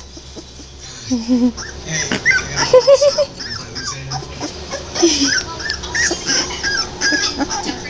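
Three-week-old American Pit Bull Terrier puppies whimpering and squeaking, many short high-pitched cries overlapping, sparse for the first second and then almost constant.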